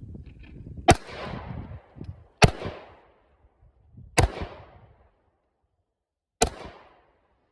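Four single shots from a Glock 43 9mm pistol, slow aimed fire about one and a half to two seconds apart, each sharp crack followed by a short echoing tail.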